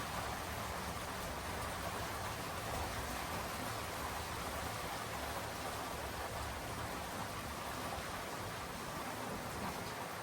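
Steady rain falling, an even hiss with no separate drops or pauses standing out.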